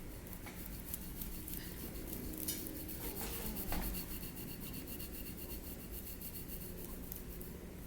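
A metal Graston instrument scraping over skin and muscle in quick, repeated strokes, faint. This is instrument-assisted soft-tissue work to break up superficial scar tissue.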